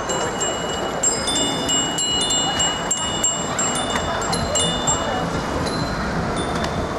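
Many bicycle bells from a group of cyclists ringing over and over, short high dings overlapping one another, over steady street noise.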